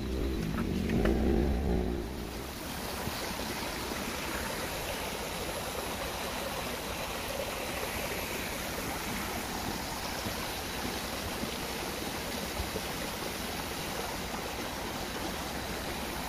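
Steady rushing of a flowing forest stream, with a low rumble in the first two seconds.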